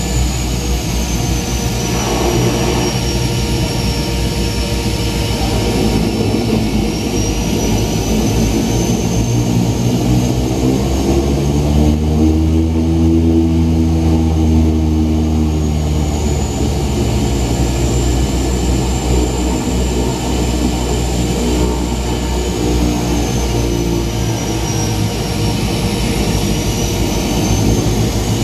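Seaplane's propeller engines heard from inside the cabin: a loud, steady drone with a high whine that slowly dips and rises again, and a low throbbing swell midway through.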